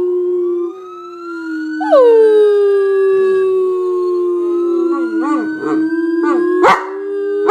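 A dog howling in long drawn-out notes, each starting high, sliding down and then held. A new howl begins about two seconds in, and its pitch wavers toward the end. A short, sharp sound comes near the end.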